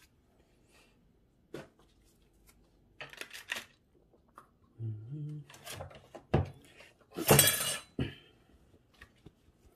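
Small metal parts clinking against a hard container: a few separate clinks, then a longer clattering rattle about seven seconds in.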